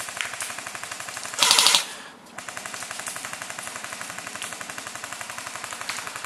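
Airsoft guns firing on full auto: a steady, rapid rattle of shots, with a louder burst about a second and a half in.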